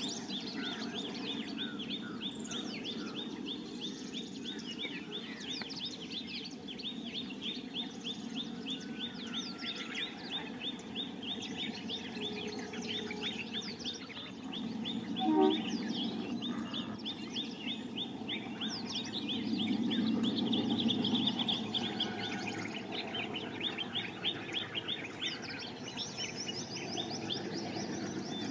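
Birds chirping rapidly and continuously over the steady low rumble of a distant diesel-hauled train, which swells about two-thirds of the way through. A short, louder sound stands out about halfway.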